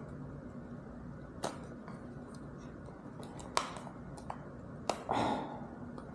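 Product packaging being pried open by hand: a few sharp, separate clicks and snaps, with a short rustle about five seconds in.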